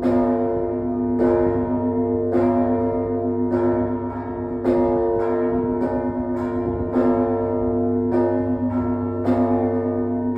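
Russian Orthodox bell peal (zvon) on the main bell tower of the Trinity-Lavra of St. Sergius. Bells are struck in a steady rhythm of about one stroke a second, with extra quick strokes in between, over the long, overlapping ring and low hum of the larger bells.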